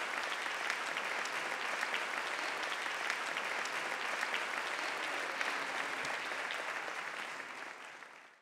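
Audience applauding, a dense steady clatter of many hands clapping that fades away over the last second or so.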